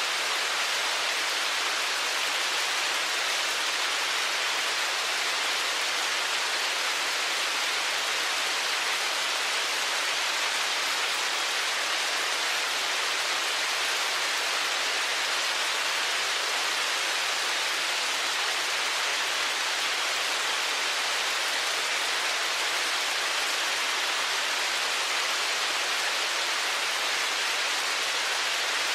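Heavy rain falling steadily, a dense even hiss of drops with no separate hits standing out.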